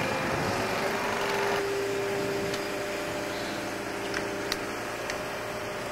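Wheeled excavator's diesel engine running steadily, with a steady hum, and a few faint clicks about four seconds in.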